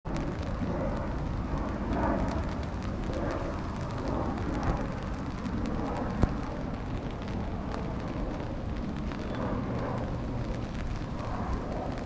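Steady rain falling on wet pavement, a constant patter of small drop ticks over a low rumble, with one sharp tap about six seconds in.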